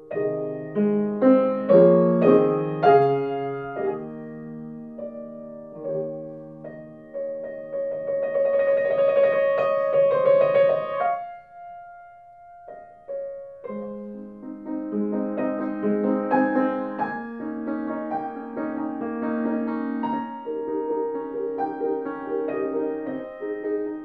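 Piano music: slow notes and chords, a flurry of rapid notes about eight seconds in, a brief lull with one held note, then chords again.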